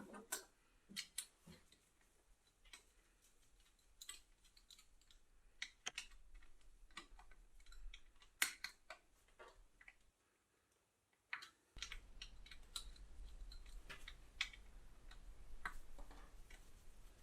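Faint, irregular clicks and light taps, a few a second at most, with a short stretch of dead silence past the middle.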